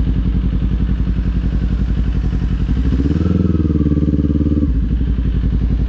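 Kawasaki Z400's 399 cc parallel-twin engine running at low road speed. About three seconds in the revs rise briefly under throttle, hold for under two seconds, then drop back.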